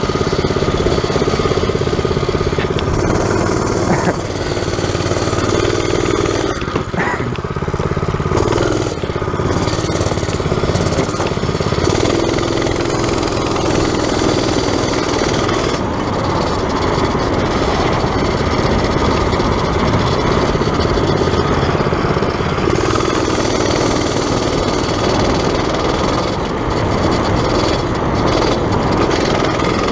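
Predator small engine in a converted XR80R dirt bike running under way, its note rising and falling as the throttle opens and closes.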